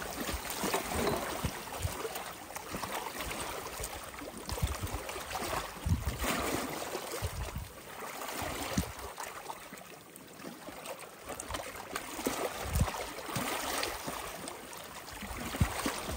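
Small lake waves lapping and splashing against rocks at the water's edge, an irregular wash that swells and falls back every second or so.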